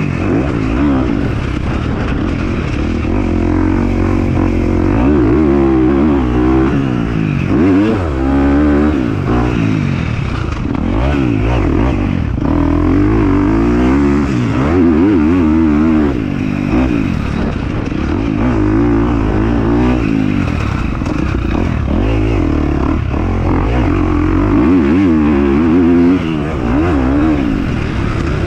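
Dirt bike engine being ridden, its pitch rising and falling again and again as the throttle is opened and closed.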